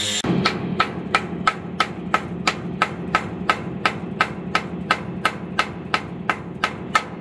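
Steady metal-on-metal hammering, about three ringing strikes a second, over a steady low hum.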